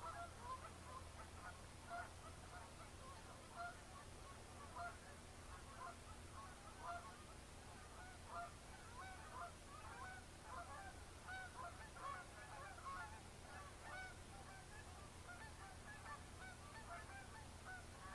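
Faint honking of a flock of geese, many short calls overlapping and continuing throughout.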